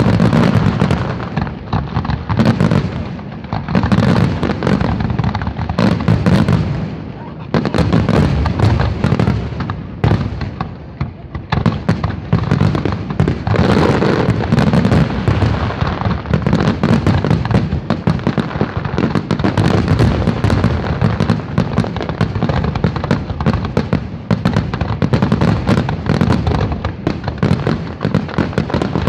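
Barrage of aerial firework shells bursting in rapid succession, many reports overlapping into a continuous crackle and boom. It thins briefly about ten seconds in, then builds back to a dense volley.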